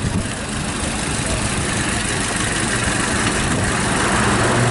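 1909 Ford Model T's four-cylinder engine running as the car drives past, growing louder as it comes closer.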